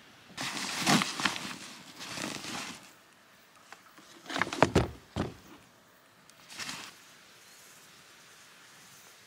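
Rustling and knocking of hiking gear being handled in an SUV's cargo area, in four short bursts, the loudest with a few sharp knocks about four and a half seconds in as a hiking boot comes down on the cargo floor.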